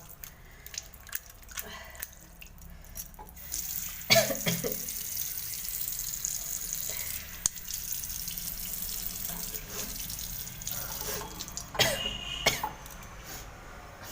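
A woman's sneeze-like bursts, one about four seconds in and two close together near the end, as she tickles her nose with a blade of long grass to set off sneezing. A steady hiss runs between them.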